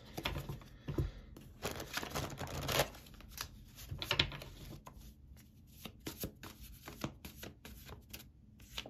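Tarot or oracle cards being shuffled and handled: a dense run of papery rasps and flicks in the first three seconds, then scattered single flicks.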